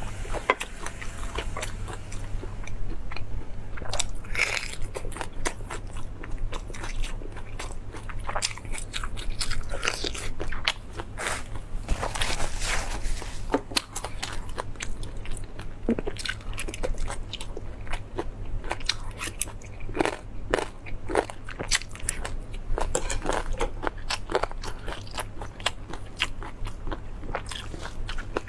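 Close-miked eating of meat: repeated bites and chewing, with many irregular sharp clicks, over a steady low hum.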